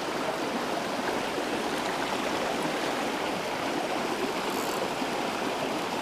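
Small rocky mountain stream running over boulders in a steady, even rush of water.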